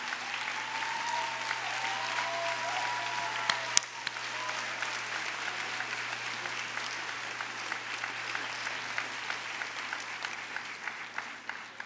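Large audience applauding, the clapping thinning out and dying away near the end, with a single sharp click about three and a half seconds in.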